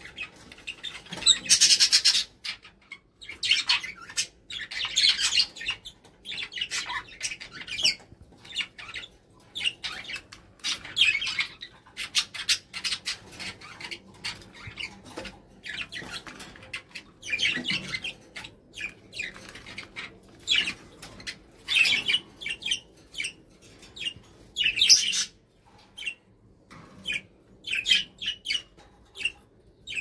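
Red-fronted kakariki (yellow-plumaged parakeet) giving short, harsh chattering calls in irregular bursts, some of them loud.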